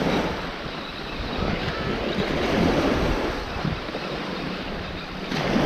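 Waves washing on a beach, with wind rumbling on the microphone; the sound swells and fades every second or two.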